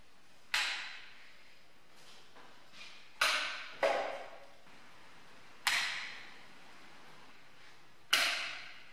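Five loud switch-on clunks, one about half a second in, two close together around three seconds, one near six seconds and one near the end, each with a short echoing ring-out, as the workshop's LED ceiling panel lights are switched on one after another.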